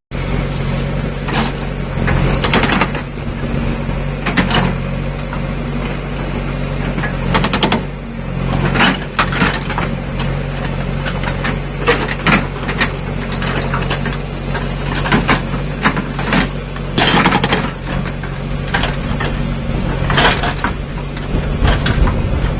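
Indus SAGA70 hydraulic rock breaker on a backhoe loader hammering in irregular bouts of sharp, rapid knocks, over the backhoe's steadily running diesel engine.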